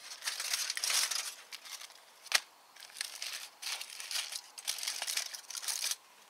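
Aluminium foil crinkling and rustling in uneven bursts as hands open and fold foil parcels, with one sharp click a little over two seconds in.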